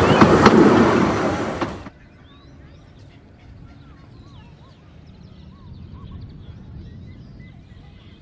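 A 15-inch-gauge steam train's carriages clattering past close by, cut off suddenly about two seconds in. After that, quiet open-air background with small birds chirping.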